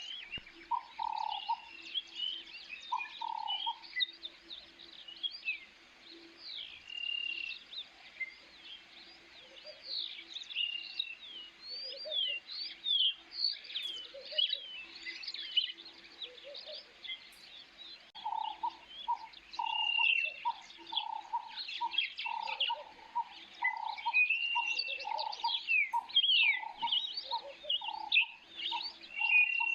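Birds chirping: many short, quick high chirps overlapping, with a lower call repeated in an even series near the start and again through the second half.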